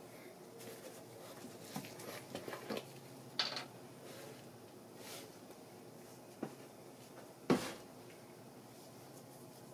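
Gloved hands handling small engine parts and a plastic motor-oil bottle on a workbench: a few scattered light clicks and knocks, the sharpest about three and a half and seven and a half seconds in, over a faint low hum.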